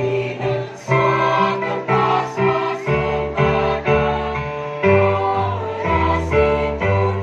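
A school choir singing, several voices holding notes together that change in step about every half second to second.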